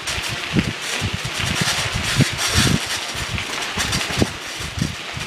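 Footsteps crunching on a gravel path, irregular thuds under a steady rustling hiss from the moving, hand-held microphone.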